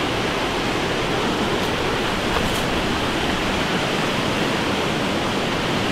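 Steady rush of a rain-swollen river pouring through whitewater rapids over a rocky cascade.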